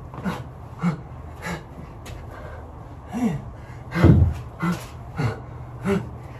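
A man breathing hard from exertion: a string of short, forceful breaths and grunts every half second to second, with a brief pause a couple of seconds in and the strongest one about four seconds in.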